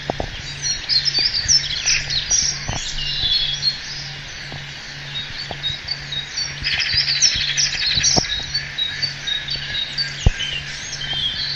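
Many birds chirping and calling at once, in overlapping short rising and falling notes, with a fast buzzy trill about seven seconds in. Under it runs a faint low hum that pulses about twice a second, with scattered light clicks.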